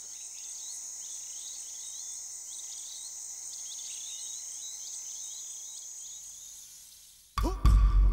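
Steady high-pitched insect trill with short chirping calls repeating about once or twice a second, fading out about seven seconds in. Near the end a sudden loud deep boom with a falling tone breaks in.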